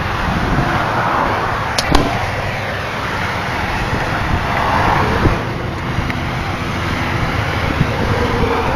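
Expressway traffic, cars passing at speed below: a steady rush of tyres and engines that swells as vehicles go by, about a second in and again around five seconds. A couple of sharp clicks just before two seconds in.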